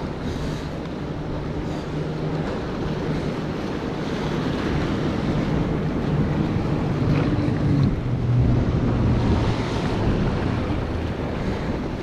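Waves washing and breaking against jetty rocks, with wind buffeting the microphone. The surf swells louder for a few seconds after the middle.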